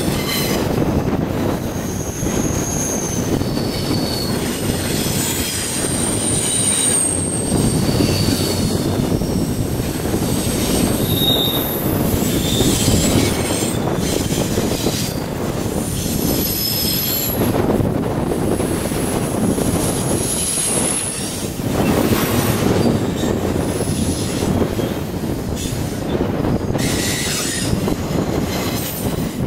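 Double-stack intermodal freight train's well cars rolling past close by: a steady rumble of steel wheels on rail, with high-pitched wheel squeals that come and go every few seconds as the cars take the curve.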